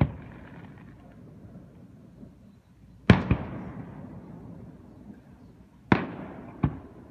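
Aerial firework shells bursting: a bang at the very start, a sharp bang about three seconds in with a smaller one right after, then two more bangs near the end less than a second apart, each trailing off in a long rolling echo.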